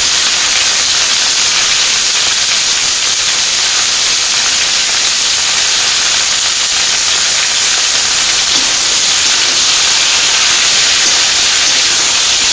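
Ash gourd pieces sizzling steadily in hot oil in a kadai.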